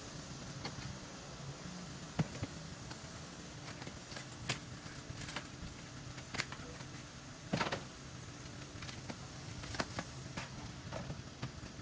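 Metal tubing frame being handled and loaded onto a junk trailer: about half a dozen scattered clanks and knocks, the loudest a little past halfway, over a steady low hum.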